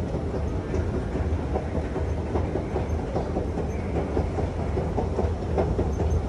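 Metro station escalator running: a steady low rumble with a fast, irregular clatter from the moving steps.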